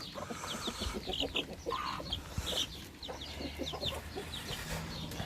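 Chickens clucking close by, with short high calls repeated several times a second.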